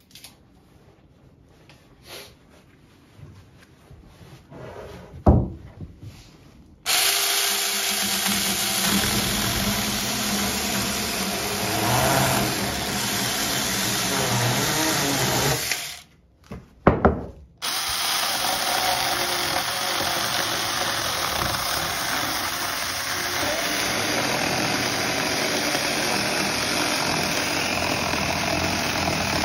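A Saker 20V cordless mini chainsaw cuts wood. After a few clicks and a sharp knock, it starts suddenly about seven seconds in and runs steadily through a 2x4 until about sixteen seconds. After a couple of knocks it runs steadily again, cutting into a log, from about eighteen seconds on.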